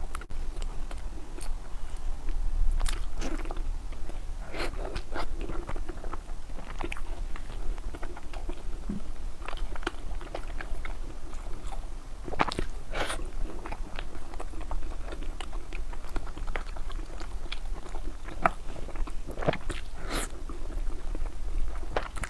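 Close-miked eating: a person biting and chewing food, with irregular crunches. The loudest bites come about halfway through and near the end, over a steady low hum.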